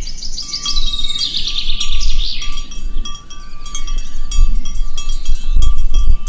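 Birds chirping, opening with a run of quick falling chirps, over a steady thin high tone and light chime-like tinkling. Deep low thumps come in during the second half.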